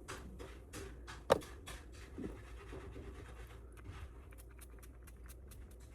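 Rapid scratching strokes, several a second, with one sharp click about a second in.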